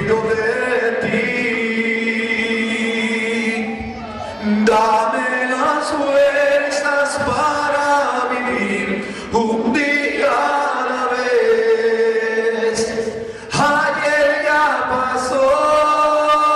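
Congregation singing a slow worship song together in long held notes, the phrases breaking every four to five seconds.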